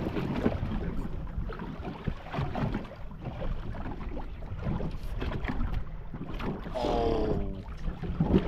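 Wind buffeting the microphone over the sound of a small boat on the water, with scattered knocks. A short pitched tone slides slightly downward about seven seconds in.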